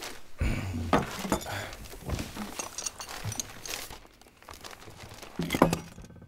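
Paper bag crinkling and rustling as it is handled and opened, with scattered small clicks. Near the end comes one louder knock, the loudest moment, as a small metal spherical gadget is set down or handled.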